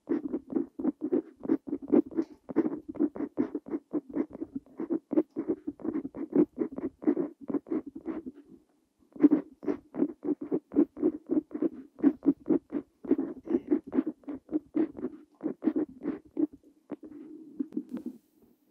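Steel nib of a Parker Jotter fountain pen scratching across paper in quick short strokes, writing Korean characters by hand, with a brief pause a little before halfway.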